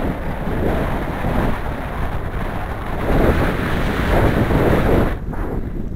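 Wind rushing over the camera's microphone in flight under a tandem paraglider, a dense low rumble that swells and eases, dropping somewhat about five seconds in.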